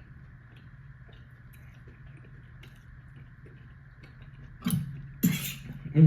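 Soft chewing with small mouth clicks from someone eating, over a faint steady hum. Near the end come a few louder knocks and a brief rustle of food being handled.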